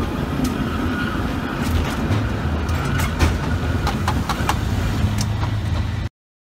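San Francisco cable car running on its tracks: a steady low rumble with a run of sharp metallic clicks and clanks near the middle. It cuts off suddenly about six seconds in.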